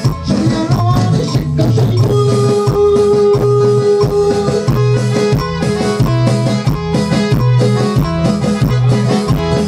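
A live band playing dance music: electronic keyboard and electric guitar over a steady drum beat and a repeating bass line, with one keyboard note held for a couple of seconds early in the passage.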